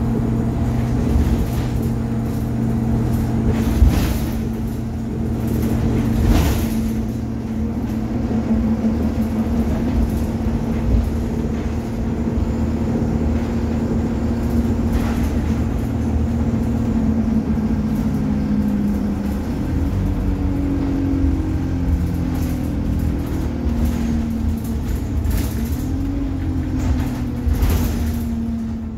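ADL Enviro 200 single-deck bus running: a steady engine drone with a few short knocks and rattles. About two-thirds of the way through, the engine pitch starts to waver, rising and falling as the bus changes speed.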